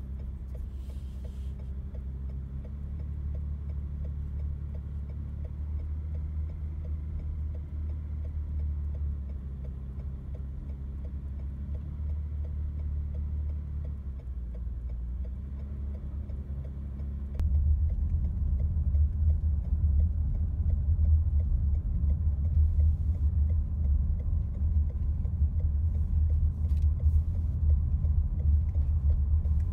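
Low, steady rumble of a moving car's engine and road noise heard from inside the cabin. It steps up louder a little over halfway through.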